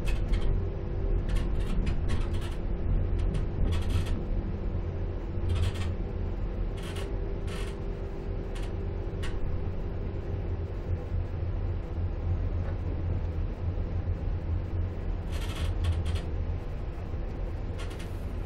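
Inside a Z2ABCMg-FPS passenger coach: a steady low rumble of the train rolling along, broken by scattered sharp clacks of the wheels over rail joints and points as it pulls into the station. A faint steady hum under it fades out about eleven seconds in.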